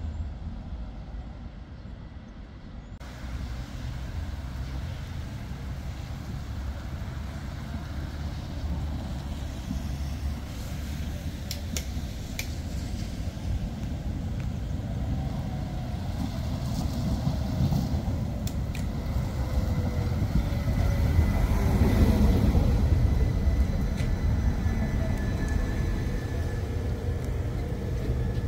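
Tram running on street track: a low rolling rumble that swells to its loudest about three quarters of the way through and then eases. A faint falling whine and a few sharp clicks sound over the rumble.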